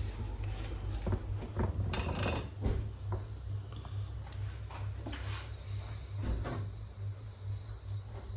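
Irregular clicks and knocks of parts being handled and fitted as the all-in-one PC is put back together, over a steady low hum.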